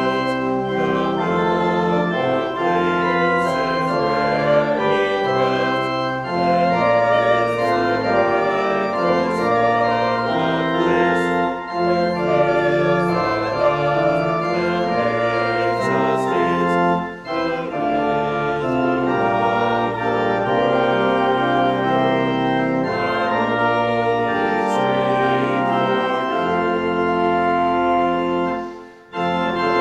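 Pipe organ playing a hymn in slow, held chords, with short breaks between phrases about halfway through and again near the end.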